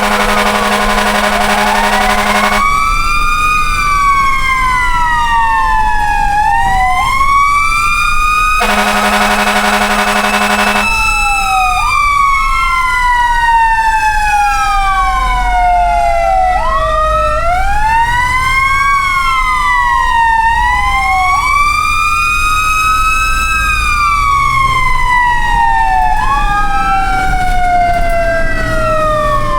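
Several fire truck sirens wailing at once, their pitches sweeping up and down out of step with each other. A steady horn blast sounds at the start and another about nine seconds in, each about two seconds long.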